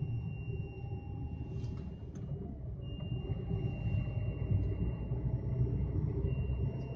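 High, steady whistle from the CNG gas pressure reducer of a Lada Vesta CNG, stepping slightly higher in pitch about three seconds in, over a low engine rumble. The whistle is a reducer fault that has grown louder over a month.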